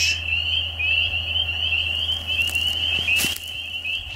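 A chorus of frogs calling: many high, short rising peeps overlapping in a steady stream, with a couple of brief rustles or knocks around three seconds in.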